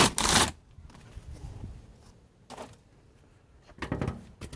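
Packaging being handled while a steel tool chest is unpacked: a loud scraping rustle in the first half second, then quieter, scattered handling noises with a short rustle midway and a few more near the end.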